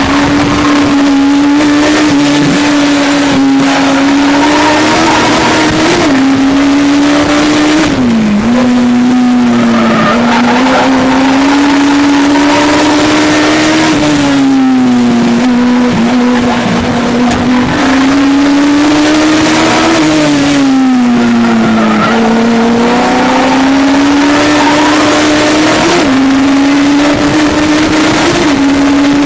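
Legends race car's Yamaha four-cylinder motorcycle engine at racing revs, heard from inside the cockpit. Its pitch climbs slowly and then drops or jumps several times with gear changes and lifts for the corners.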